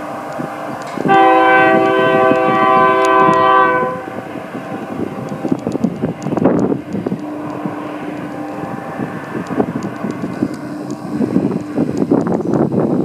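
Union Pacific freight locomotive's air horn sounding one long blast of about three seconds, starting about a second in. After it, the rolling rumble of the train of empty autorack cars, with scattered clicks and clanks.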